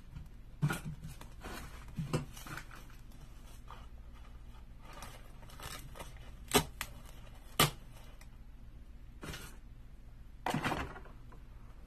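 Artificial fall leaves rustling and crinkling as their stems are stuck into a styrofoam base, with a few sharp clicks and knocks, and a longer rustle near the end.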